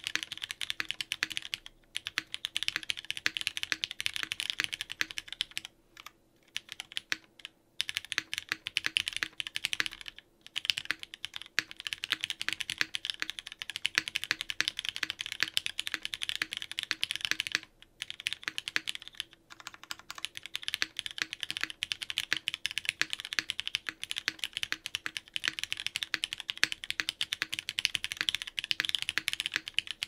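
Typing on a custom 60% mechanical keyboard (roywerkz Integral) with lubed Cherry MX Black linear switches in an aluminium plate and GMK keycaps: a rapid stream of key clacks, broken by short pauses every few seconds.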